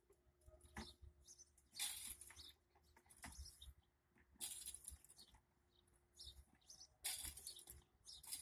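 Playground swings' chains rasping faintly at their hangers in time with the swinging, a short hiss-like burst about every two and a half seconds.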